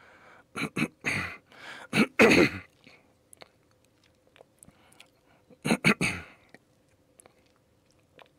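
A man coughing and clearing his throat in short, loud bursts: a cluster in the first few seconds, then another about four seconds later.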